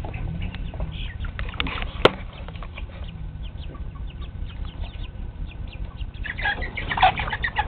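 Chickens clucking in short, scattered calls, which grow louder and denser near the end. A single sharp click comes about two seconds in.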